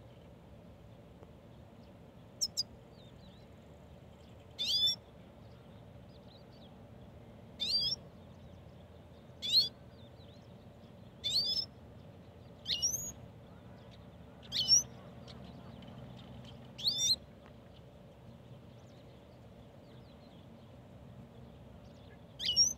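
Goldfinch giving short, high chirping calls, about nine of them a second or two apart with a longer pause before the last; each call is a quick sweeping note.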